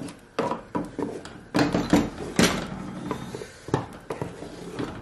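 Wooden spoon stirring thick soup in a large aluminium pot, knocking and scraping against the pot's sides several times.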